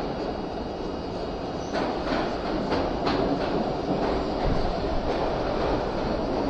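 Subway train running past the platform, a steady dense noise with a few sharp clacks of the wheels over rail joints between about two and three seconds in.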